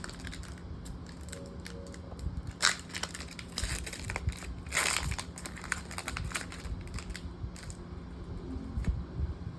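Foil wrapper of a Pokémon card booster pack crinkling and tearing as it is opened, in irregular crackles with the loudest tear about five seconds in.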